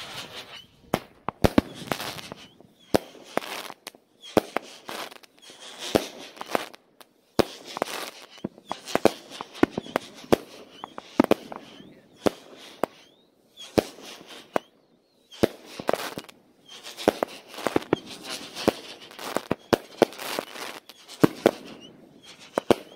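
Multi-shot consumer fireworks cake firing a long barrage: a steady run of sharp bangs about every second, with crackling between the shots.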